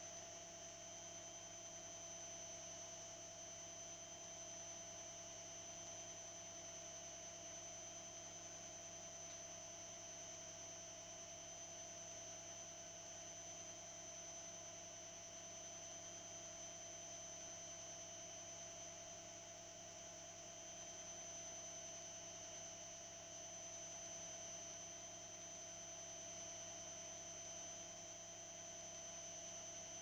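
Electrolux EW 855F washing machine in an interim spin, the drum and motor running at a steady speed: a faint, even hum with a steady high whine.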